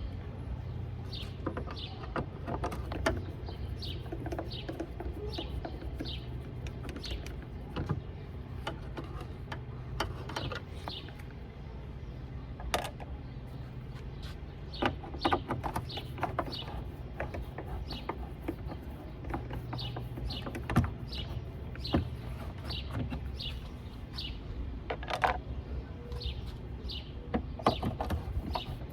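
Birds chirping in a long series of short falling chirps, about two a second, over a steady low hum. A few sharp clicks come from a Phillips screwdriver backing out tail-light screws.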